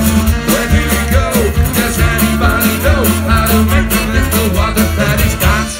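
Live folk band playing an upbeat number: fiddle, acoustic and electric guitars, bass and drums with a steady driving beat.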